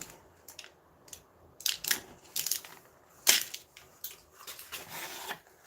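Packaging handled while being unboxed: a series of short crinkling, crackling noises, the loudest about three seconds in.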